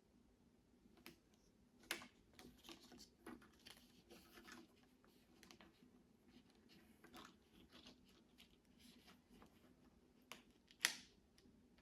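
Lego pieces being handled: faint scattered plastic clicks and rustling, with sharper clicks about two seconds in and near the end.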